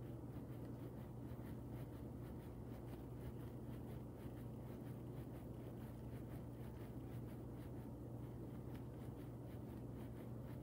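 Quiet room tone with a steady low hum, over which come faint, irregular scratchy ticks of a hand rubbing and turning a latex balloon.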